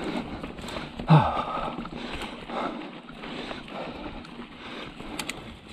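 Norco Range A1 mountain bike ridden along a dirt forest singletrack: tyres on dirt and the bike rattling and clattering in uneven pulses. A short falling groan-like sound about a second in is the loudest moment, and a couple of sharp clicks come near the end.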